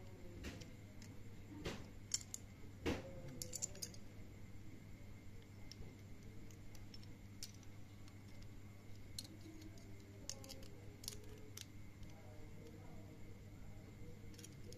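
Scattered light clicks and taps of a small plastic-and-metal toy spinning top and its plastic parts being handled, with a few sharper clicks about two and three seconds in, over a steady low hum.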